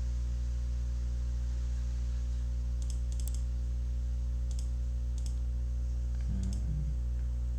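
A few faint, scattered computer clicks over a steady low electrical hum.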